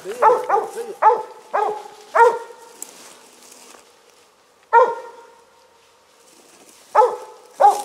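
A cur dog barks at the foot of a tree in a quick run of five barks, then one more about five seconds in and two near the end. This is its tree bark, the signal that it has a squirrel treed.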